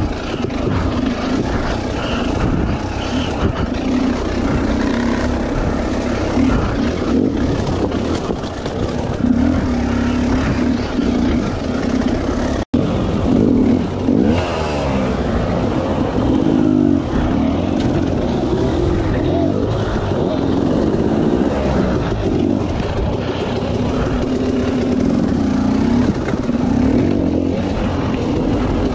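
Dirt bike engine revving up and down in short bursts at low speed as the bike is picked over rocks. The sound cuts out for an instant about halfway through.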